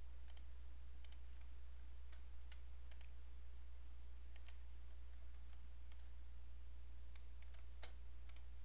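Computer mouse clicking at irregular intervals, about fifteen short sharp clicks, over a steady low hum.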